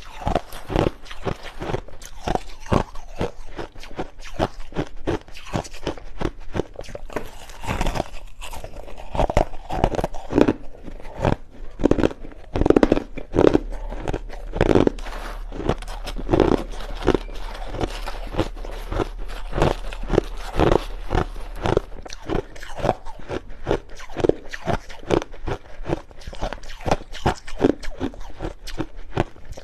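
Crushed ice being chewed close to the microphone: a continuous run of sharp crunches, several a second.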